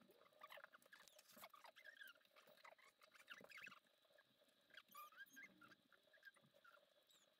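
Faint crunching and small clicks of a kitten eating dry kibble from a ceramic bowl.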